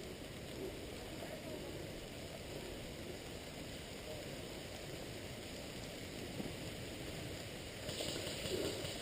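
Steady, quiet hiss of rain falling, with a brief louder rustle near the end.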